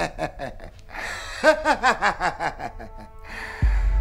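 A high-pitched, rapid laugh in two runs of quick ha-ha syllables, with a breath between them. A low drone of film score comes in near the end.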